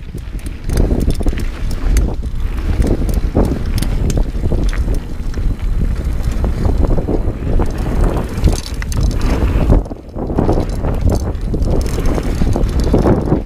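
Dartmoor Primal 29er hardtail mountain bike ridden fast down a dirt trail: tyres rolling over dirt and leaves with a steady stream of rattles and knocks from the bike over bumps, under heavy wind noise on the microphone. The noise drops away briefly about ten seconds in.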